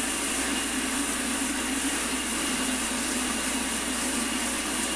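Water running steadily from a tap into a sink, a constant rushing hiss.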